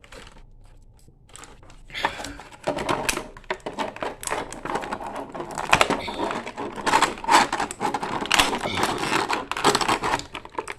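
Plastic action-figure packaging crinkling and clicking as it is handled and pried at, in a quick, irregular run that starts about two seconds in.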